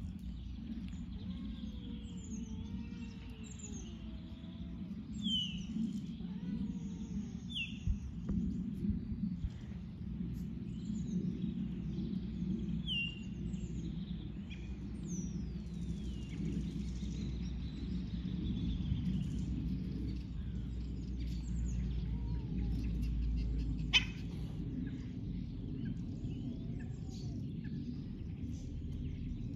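Small songbirds chirping and twittering in short falling calls, over a steady low rumble. A single sharp click near the end.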